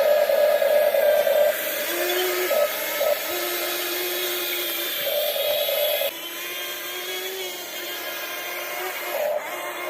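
Small electric gear motors of remote-control model excavators whining, switching on and off every second or two as the controls are worked, with two different steady pitches taking turns.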